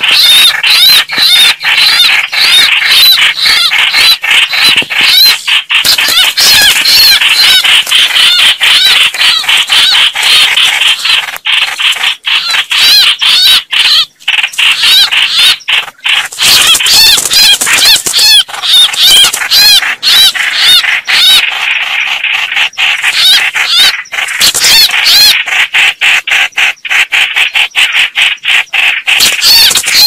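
Red-whiskered bulbuls fighting: a loud, unbroken chatter of rapid, harsh, overlapping calls.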